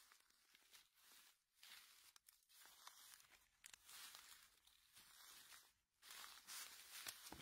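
Faint rustling and crunching of dry oak leaf litter in irregular bursts as chanterelle mushrooms are picked from it by hand.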